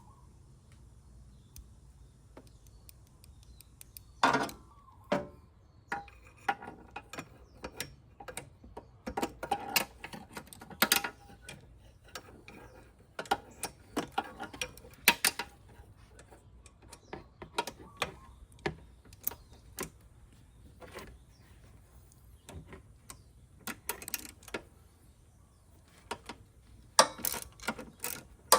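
Hand-tool work on a scooter's rear brake: a socket ratchet clicking in short runs, mixed with knocks and clinks of metal tools and parts.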